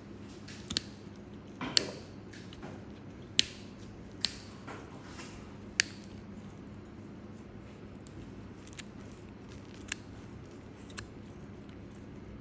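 Sharp snips and cracks of nail nippers and pliers biting through a thick, crumbling toenail: about five loud snaps in the first six seconds, then a few fainter clicks. A faint steady hum runs underneath.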